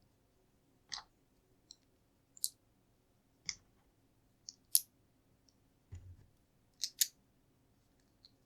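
LEGO plastic pieces clicking as they are handled and pressed into place: about ten short, sharp clicks at irregular intervals, with one duller knock about six seconds in.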